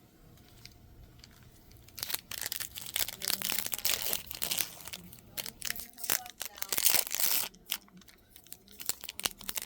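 Wrapper of a trading card pack being torn open and crinkled. A dense run of crackling rustles starts about two seconds in and is loudest just before it thins out, followed by lighter clicks and rustles as the cards are handled.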